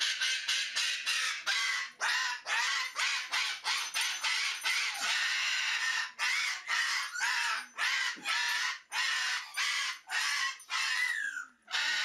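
A parrot screeching over and over, a rapid run of harsh calls about two or three a second with hardly a pause.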